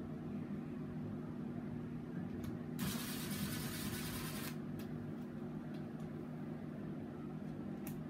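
DeWalt brushless cordless drill/driver motor running at a steady pitch as it backs out the mounting screws of a wall light switch. About three seconds in, a hissing, rougher stretch lasts a second and a half.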